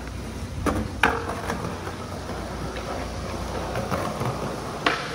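Skateboard wheels rolling over concrete with a low rumble, with several sharp clacks of the board: three close together about a second in and one near the end. A steady hiss of rain sits behind it.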